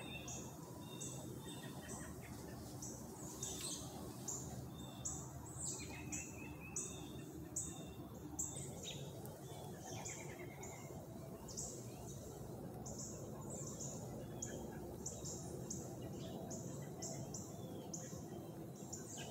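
Faint birdsong in woodland: a long series of short, high chirps repeating about two to three times a second, with scattered lower chirps in between.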